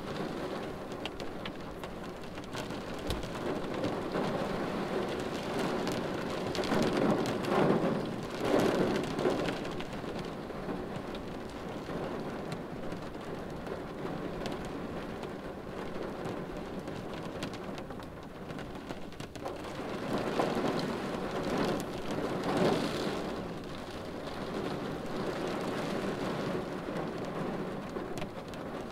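Steady rain pattering on a car windshield, heard from inside the car, swelling louder twice, about a quarter of the way in and again past two thirds of the way through.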